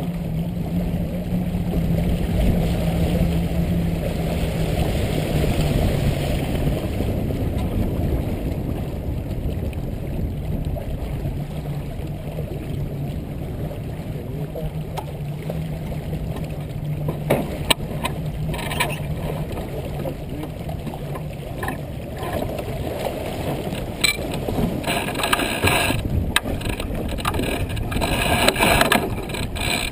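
A motor running steadily with a low hum under a rushing noise. From about halfway in come scattered knocks and rattles, thicker near the end.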